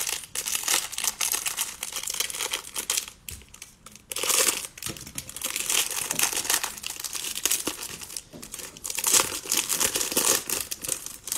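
Clear plastic cello wrapper of a trading-card hanger pack crinkling and tearing as it is peeled off by hand, in uneven spurts with a short lull about four seconds in.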